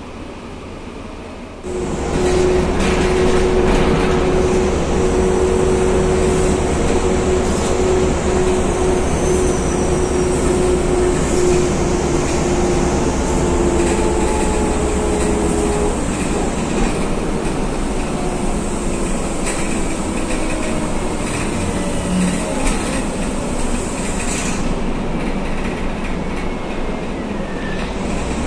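Mercedes-Benz O405GN2 articulated bus's engine and drivetrain heard from inside the passenger cabin as the bus pulls away, with a sudden rise in level about two seconds in. It settles into a steady loud running drone. A whining tone is held over it and fades out about halfway through.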